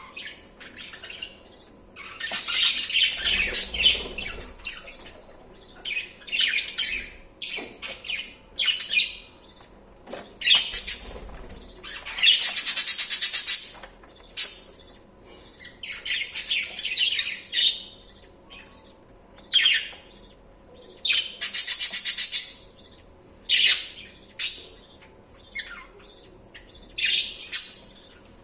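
Budgerigars calling: a run of shrill squawks and chirps in bursts with short pauses between them, including a few longer, fast buzzy chattering trills.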